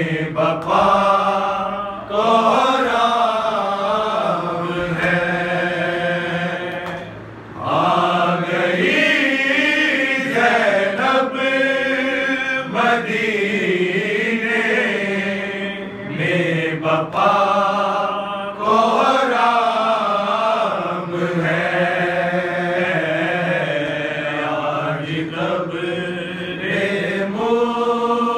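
A noha, a Shia lament, chanted by a solo voice in long, wavering held notes over a steady low drone.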